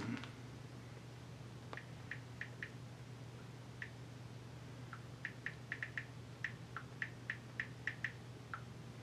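Smartphone on-screen keyboard clicks as a thumb types a search: about twenty short, high ticks in irregular bursts, with a faint steady low hum underneath.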